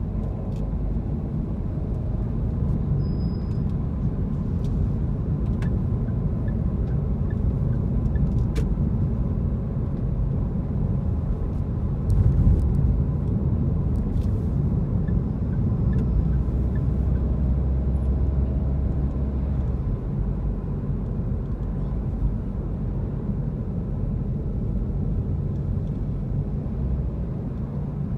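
Steady low rumble of a car driving, from road and engine noise. It swells briefly about twelve seconds in, and a low steady hum sits under it for a few seconds past the middle.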